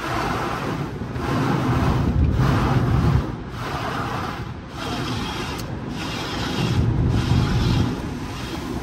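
Automatic drive-through car wash working over the car: a steady noisy rush over a deep rumble, swelling and easing every second or two.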